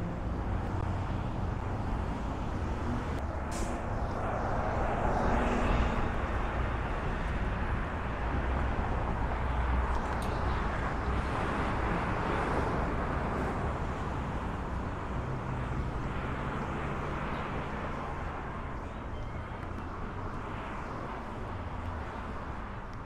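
Street traffic going past: a steady rumble of vehicles that swells twice and slowly fades over the last part.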